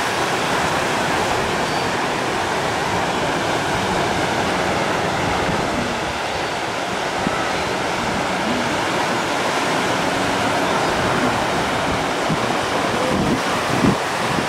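Lake Michigan surf breaking on the beach: a steady, constant rushing wash of waves, with wind thumping on the microphone a few times near the end.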